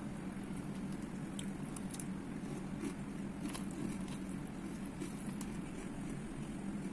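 Someone eating Nestlé Koko Krunch chocolate cereal in milk with a spoon: scattered small crunches and clicks from chewing and the spoon in the bowl, over a steady low hum.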